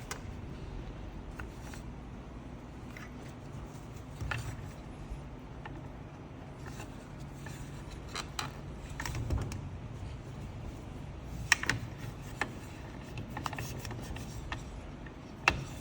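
Scattered light clicks and knocks of small tools and saw parts being handled during disassembly, two of them sharper near the end, over a low steady hum.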